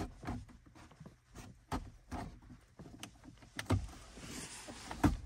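A plastic pry tool prying at the edge of a plastic dashboard trim panel: a string of irregular sharp plastic clicks and knocks as the tool and fingers work the panel's edge.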